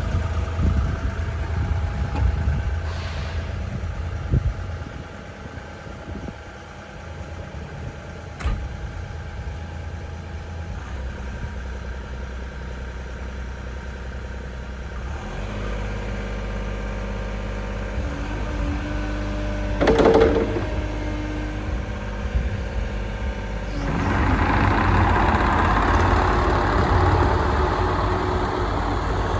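JCB 60C-2 midi excavator's diesel engine running steadily, its note changing about halfway through. A sharp knock comes a little later, and the sound grows louder near the end.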